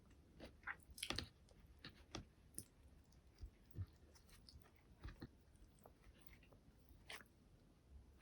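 Close-miked chewing of fast food: soft, irregular wet clicks and small crunches, with the loudest bites about a second in.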